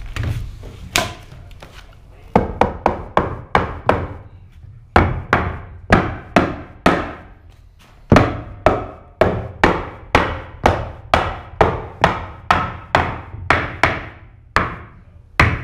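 Rubber mallet knocking foil-faced subfloor boards into place on the truck-box floor. The blows come in runs of about three a second, with short pauses between the runs.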